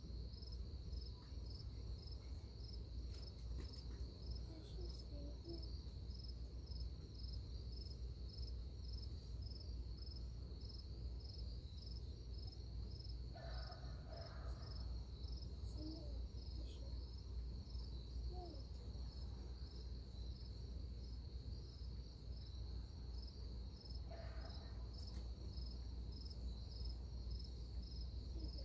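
Crickets chirping in a faint, steady, high pulsing trill over a low, even background rumble.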